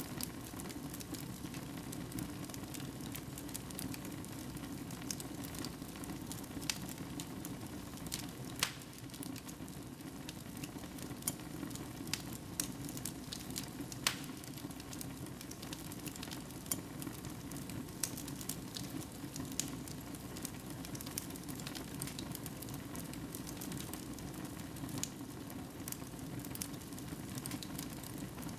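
Wood fire in a fireplace crackling steadily over a low rumble of the flames, with irregular pops and a few louder snaps.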